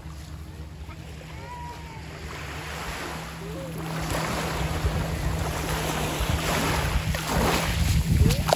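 Small waves washing onto a sandy shore, getting louder over the second half as the water rushes in close.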